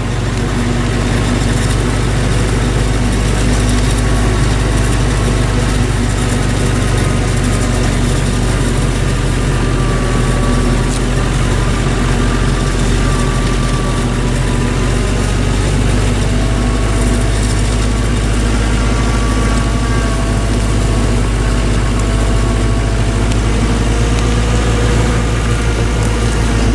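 Heavy farm machinery's diesel engines running steadily, a low drone with fainter whines that drift slowly up and down in pitch.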